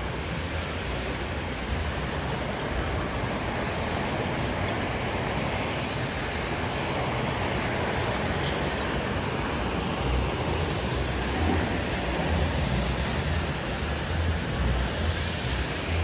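Rushing, churning whitewater of a river-rapids raft ride around the raft, with a waterfall pouring down the rockwork alongside: a steady wash of water noise.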